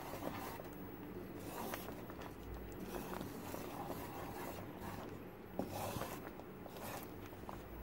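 Spoon stirring and scraping thick coconut-and-semolina paste in ghee in a pan, in repeated strokes about once a second. The paste is thickening and starting to release its ghee.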